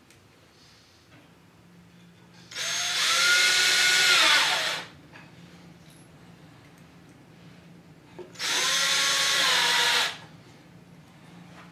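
Cordless drill driving 2-inch drywall screws into a wood strip, in two runs of about two seconds each. The motor whines up and its pitch sags as each screw seats.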